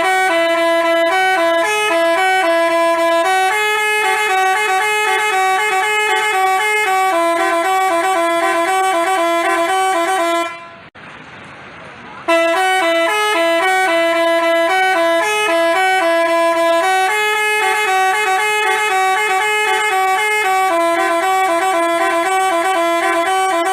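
Telolet basuri multi-tone musical bus horn playing a tune of quick two-note trills and held notes. It stops for a second or two about halfway through, then plays the same tune again.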